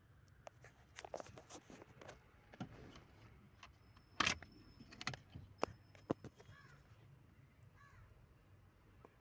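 Plastic fuse box cover under a car's dashboard being handled and taken off by hand: a series of light clicks and knocks, the loudest about four seconds in.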